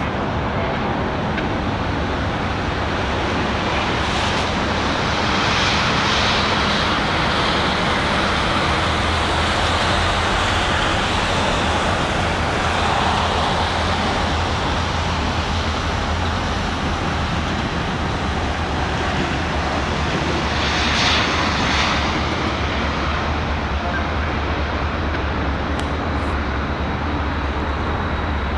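Pair of EMD diesel locomotives running at a distance as they approach, a steady low rumble, over a constant hum of city traffic.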